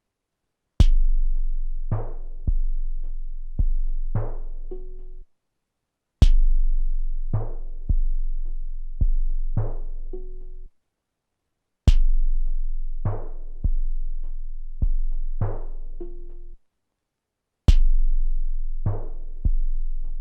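Drum pattern played back from a 12-bit SP-1200 sampler: a short beat of deep, long-ringing kick drums with a bright sharp hit at its start and a brief pitched figure near its end. It repeats about every six seconds, with a moment of silence between passes.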